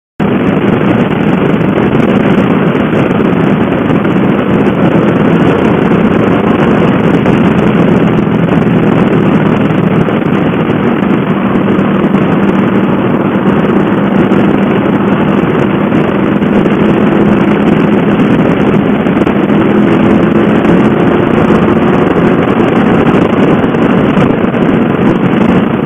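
Suzuki Boulevard M50's V-twin engine running steadily at highway cruising speed, heard from the rider's seat under a heavy rush of wind on the microphone.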